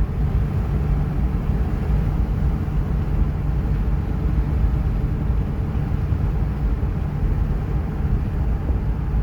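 Steady road and engine rumble inside a moving car's cabin, even throughout.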